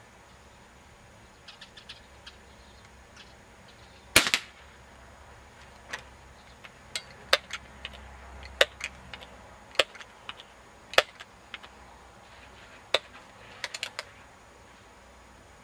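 A Crosman 1377 air pistol firing a .177 pellet into the paper target, a single sharp crack about four seconds in. Over the following ten seconds about a dozen shorter, sharper clicks come roughly a second apart, with a quick cluster near the end.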